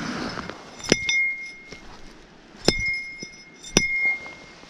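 Three sharp strikes of a hollow metal fish club on a landed steelhead, about a second in, near three seconds and near four seconds, each leaving a short high metallic ring. The fish is being killed to be kept.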